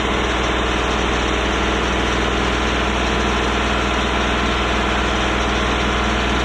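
Small diesel engine of a boatyard travel lift, an old farm irrigation-pump engine, running steadily with a low hum while the lift lowers a boat into the water.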